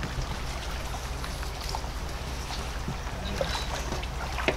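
Steady rush of river water flowing past, with a low steady rumble underneath and a single sharp tap near the end.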